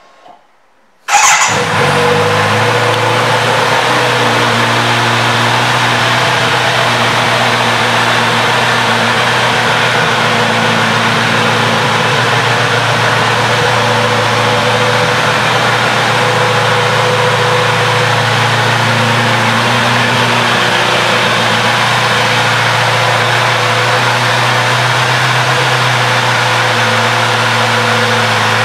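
2023 Kawasaki Z900RS's 948 cc inline-four engine starting about a second in, catching at once, then idling steadily.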